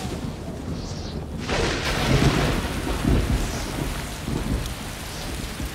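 Thunderstorm sound effect: low thunder rumbling, with heavy rain pouring in about a second and a half in.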